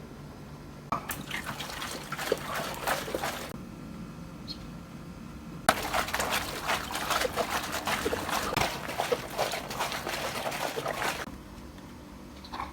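Water pouring and splattering in two spells, the first about two and a half seconds long and the second about five seconds long, full of small crackles.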